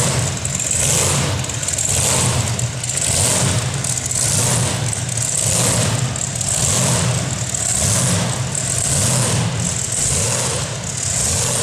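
Twin supercharged 426 Hemi V8s running at low speed through open zoomie headers, with a deep rumble that swells and fades about once a second.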